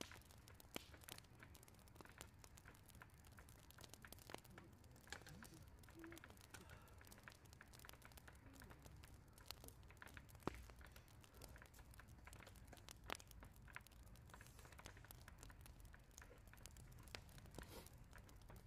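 Near silence: faint, scattered clicks and crackles over a low steady hum, with a couple of sharper ticks about ten and thirteen seconds in.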